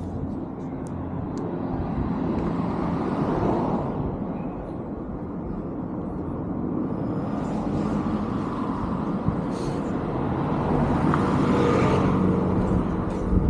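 Road traffic: cars passing, the tyre and engine noise swelling about three seconds in and again near the end.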